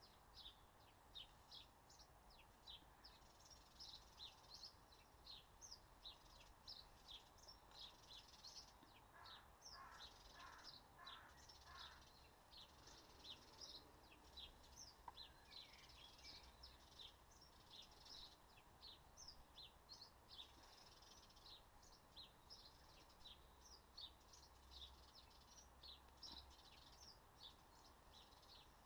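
Faint birdsong: small birds chirping in quick, high notes throughout, with a short run of about five lower calls between about nine and twelve seconds in.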